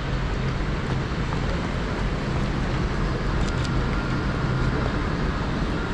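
Steady wash of heavy rain and wind noise on a city street, over a low rumble of traffic.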